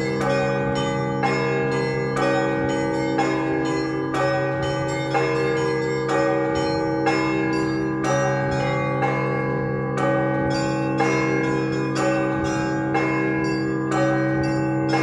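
Russian Orthodox festive bell ringing on a large set of church bells. Deep bells hum steadily underneath while middle bells are struck about once a second and small bells beat out a quick repeating pattern on top.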